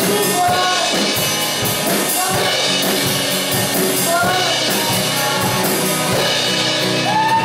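Live worship band playing a rock song: drum kit, acoustic guitar and singing voices, with a long held sung note starting near the end.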